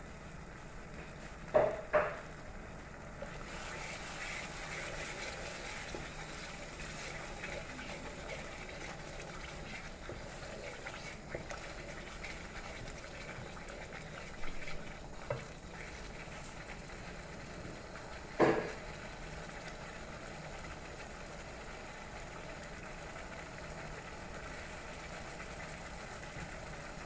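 Onion-garlic-ginger masala paste with spices frying in oil in a pan: a steady sizzle that picks up about three seconds in, with a few sharp knocks of the stirring spoon against the pan.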